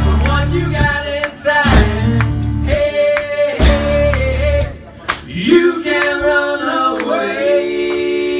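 Live indie rock band playing, with acoustic guitar, electric bass and drums under several male voices singing together. The bass and drums drop out about five seconds in, leaving the voices holding a long note.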